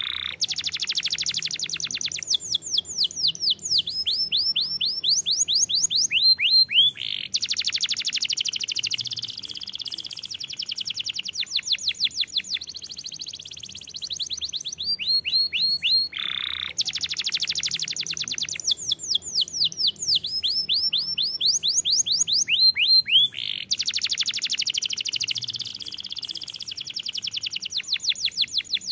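Domestic canary singing continuously in long rapid trills and rolls of repeated high notes. The phrase changes every second or two.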